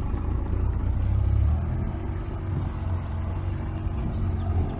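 Outboard motor running steadily at low speed, its low note easing slightly about a second and a half in.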